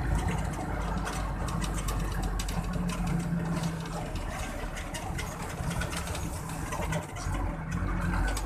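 Engine of a moving road vehicle running steadily, with road and wind noise, heard from on board.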